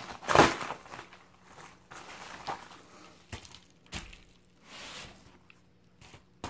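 Padded bubble mailer and its paper contents crinkling and rustling as they are handled and set down, with the loudest rustle about half a second in and softer scattered rustles after.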